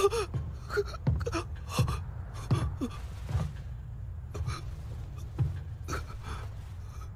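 Soft, breathy gasps and short intakes of breath from a person's voice, several in the first few seconds and then sparser and fainter.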